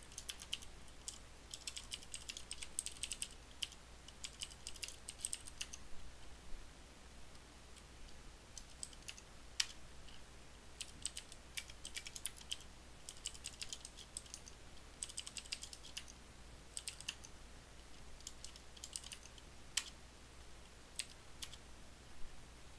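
Typing on a computer keyboard: quick runs of key clicks broken by pauses, with now and then a single louder keystroke.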